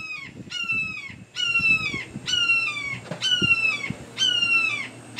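A hawk screaming: a steady series of about seven calls, roughly one every three-quarters of a second, each sliding down in pitch. A few low knocks sound underneath.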